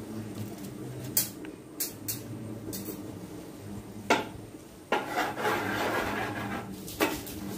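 Steel cookware being handled as soaked basmati rice is added to a pot of biryani liquid: a handful of sharp clinks and knocks, then a rasping, scraping noise lasting nearly two seconds in the second half. A steady low hum runs underneath.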